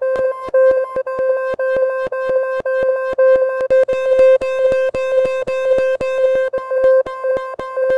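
A speaker playing a water-ejection cleaning tone: a steady mid-pitched buzzing tone chopped into sharp pulses about four times a second. The tone is meant to shake water out of the speaker grille.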